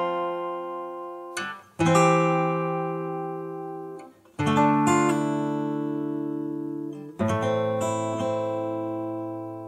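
Finger-picked acoustic guitar: a chord struck about every three seconds and left to ring out and fade, each one led in by a quick short note.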